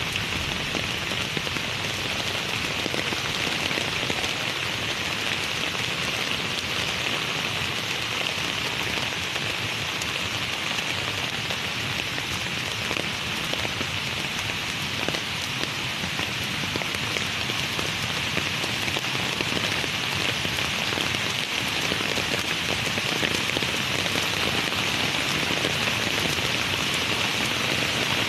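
Heavy rain falling steadily, an even hiss of drops that keeps up without let-up.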